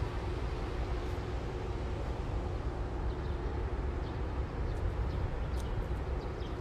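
Steady low rumbling outdoor background noise on a handheld phone microphone while walking, with a faint steady hum and a few faint high ticks near the end.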